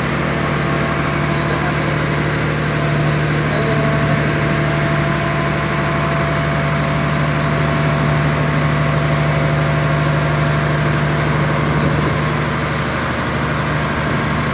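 Wirtgen 1000C cold milling machine's diesel engine running steadily, with a constant low hum and mechanical noise.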